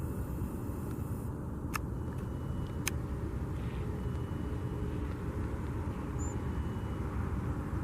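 Steady rumble of car or road traffic noise, with two sharp clicks about a second apart near the start.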